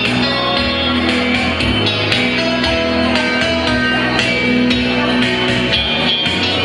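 Instrumental pop music with a steady beat and long held bass notes, the opening of a song before any voice comes in.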